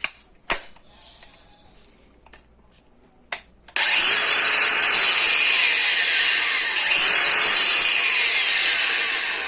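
Craftsman V20 brushless angle grinder switched on and spinning freely with no load: a loud, steady whirring whine that starts about four seconds in, after a few sharp clicks.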